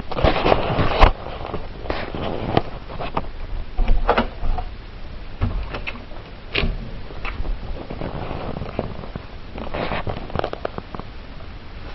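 Handling noise of a handheld camera being moved about: irregular clicks, knocks and rustling against the microphone, with a low rumble.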